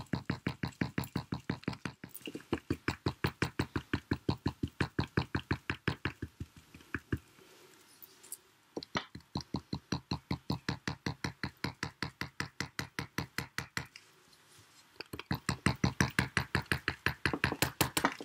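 Rapid, regular tapping of a painting tool dabbing tiny paint dots onto a paper postcard, about six taps a second, in runs with two short pauses.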